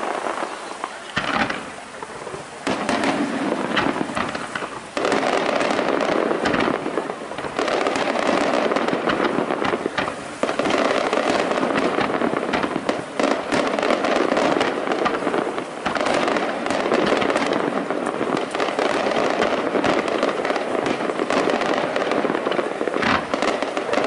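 Aerial firework shells bursting in a rapid, continuous barrage of sharp bangs and crackling, growing denser from about five seconds in.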